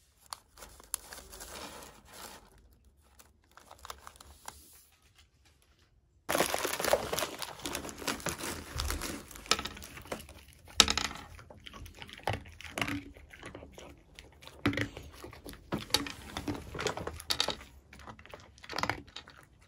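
Crinkling of a plastic foil snack bag being handled, faint at first, then much louder from about six seconds in with sharp crackles, along with a dog crunching small hard cookie treats.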